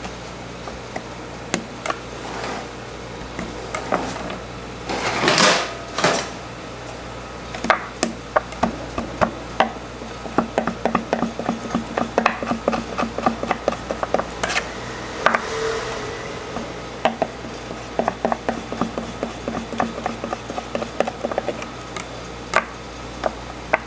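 Butcher's knife scoring beef rib meat into a net pattern on a cutting board: many quick, irregular taps of the blade against the board. Two short, louder scraping strokes come about five and six seconds in, and a steady low hum runs underneath.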